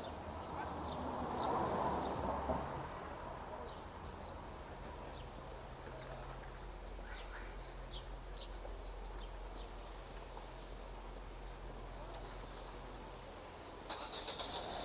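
City street ambience: small birds chirping in short repeated calls over a steady low traffic hum, with a vehicle passing about a second or two in.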